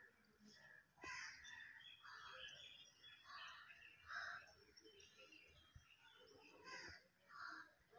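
Faint bird calls: a scatter of short calls and chirps over a quiet background.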